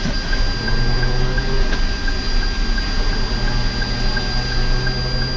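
Steady hum and hiss of a car's cabin with the engine and air conditioning running, a low drone under a faint, steady high-pitched whine.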